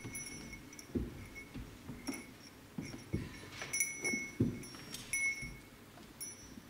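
A small hand bell rung lightly again and again at uneven intervals, each ring a brief high tone, with a few dull low thumps in between.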